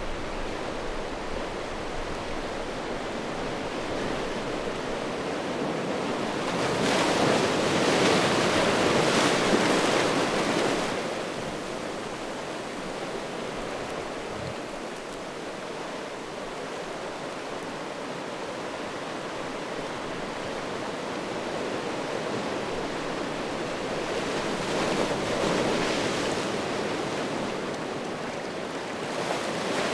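Small sea waves washing in over a shore of rounded stones: a steady wash with two louder surges, about seven seconds in and again around twenty-five seconds in.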